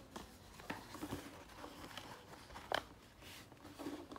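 A sheet of paper being handled, folded and creased by hand, giving soft rustles and a few short crinkling clicks, the sharpest one a little under three seconds in.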